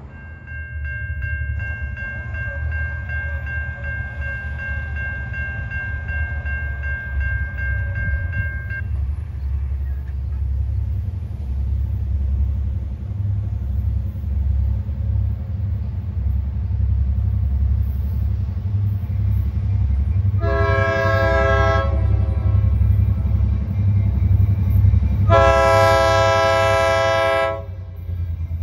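EMD GP-series diesel locomotives approaching with a steady low engine rumble, and the locomotive horn sounding twice, a blast of about a second and a half about 20 seconds in and a longer one about 25 seconds in, the opening of a grade-crossing horn signal.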